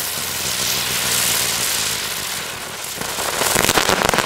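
Explode "Storm" ground-spinner firework spinning on the ground with a loud, steady hiss. About three seconds in it breaks into rapid crackling pops that grow denser, its unexpected finale effect.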